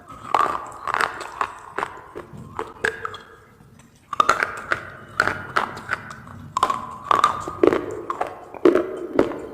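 Someone biting and crunching pieces of baked clay pot: sharp cracks and clicks, each with a short ringing ping. They come in two runs, with a pause of about a second partway through.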